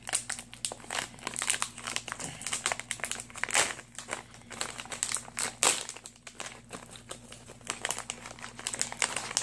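Plastic candy pouch crinkling as it is handled and worked open by hand: a dense run of irregular crackles, with a couple of louder crunches around the middle.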